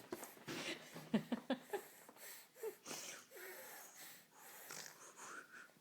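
Irregular snorting and wheezy, sniffing breaths with short smacking clicks, from Kate eating.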